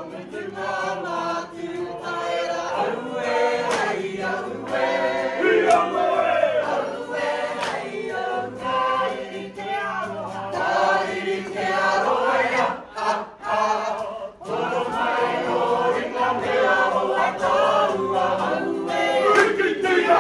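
A group of Māori women and men singing together in unison, a kapa haka song performed with actions, with a short break in the singing about two-thirds of the way through.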